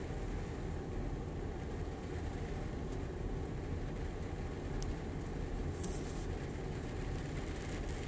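Steady low rumble of an idling vehicle engine heard from inside the cab, with a faint hiss of rain over it.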